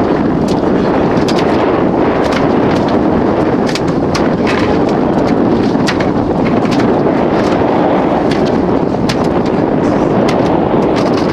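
Gale-force wind buffeting the microphone on an open boat deck, a loud steady rushing noise. Scattered sharp clicks and ticks run through it.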